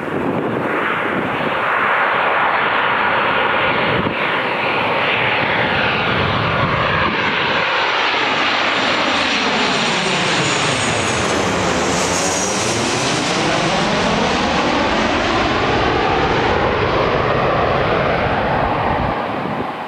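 A Boeing 737-800's CFM56-7B turbofan engines on landing approach, flying low directly overhead: a loud, steady jet roar with a thin whine. The roar takes on a sweeping, phasing quality as the aircraft passes over about twelve seconds in, with a brief high whistle at that moment. It falls away near the end as the jet recedes.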